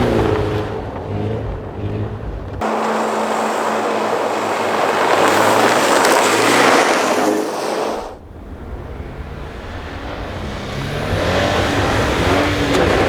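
Rally cars on a snow stage, engines revving hard as they pass. About two and a half seconds in there is an abrupt cut to a loud rushing noise with little engine tone, which cuts off again near the middle. After that another car's engine rises in pitch as it approaches.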